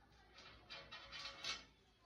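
Several short scratching strokes of a hand tile-scoring tool drawn along a straightedge across a ceramic wall tile, the strongest about a second and a half in.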